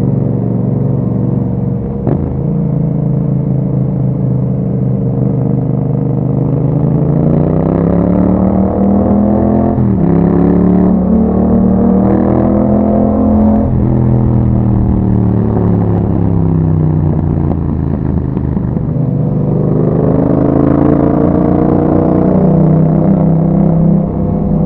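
2021 Yamaha MT-07's 689 cc parallel-twin engine through an Akrapovic exhaust, ridden on the road. The engine note climbs in pitch twice as the bike accelerates, about a quarter of the way in and again about three quarters in, easing back in between and near the end.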